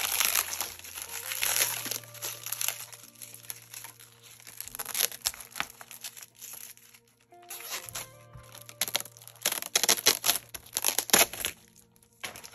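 Clear plastic packaging crinkling in irregular bursts as it is pulled off a pack of notebook inserts, loudest about ten seconds in, with soft background music underneath.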